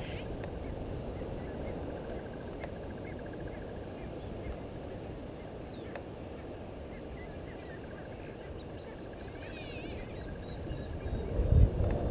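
Outdoor bush ambience: scattered faint bird chirps and a trilling call over a steady low background noise, with a louder low rumble coming in near the end.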